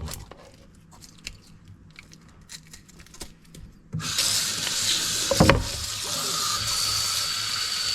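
Faint scattered clicks, then about halfway through a water tap is turned on and runs steadily into a sink, with a single knock shortly after it starts.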